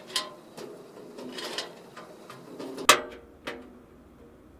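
Scattered small clicks and knocks of parts being handled inside a computer case, with one sharp click about three seconds in.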